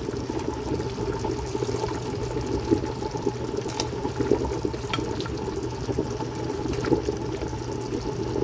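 Water at a rolling boil in a large stainless steel stockpot, bubbling steadily.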